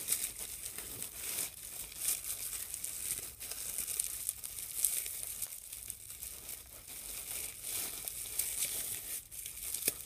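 Wrapping being pulled off a candle by hand: irregular crinkling with some tearing.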